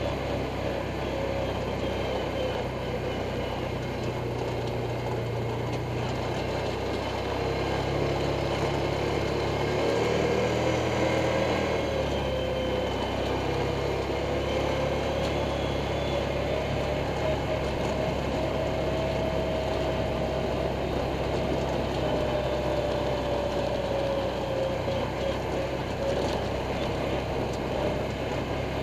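Off-road vehicle engine running steadily while riding a dirt trail, its pitch drifting slightly up and down with throttle, a little louder about ten seconds in.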